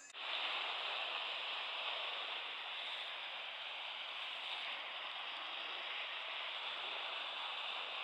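Steady hiss of calm sea water washing gently along the shore.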